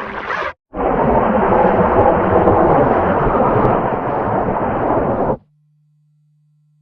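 Snoring sample heavily distorted by audio effects: a short harsh burst, then after a brief gap a long, loud, rumbling noise that cuts off suddenly about five seconds in, followed by a faint steady low hum.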